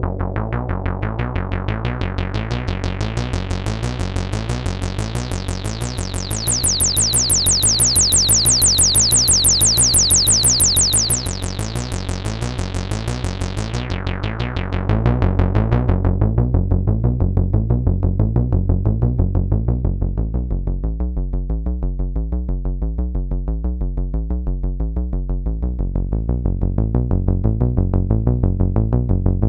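Roland SH-101 monophonic analog synthesizer playing a fast repeating sequence from its internal sequencer. The filter opens to a bright, buzzy tone in the first half, then closes down to a duller bass line.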